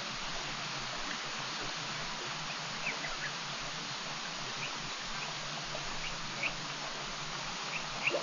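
Steady outdoor hiss with a few short, high chirping bird calls scattered through it, two close together near the end.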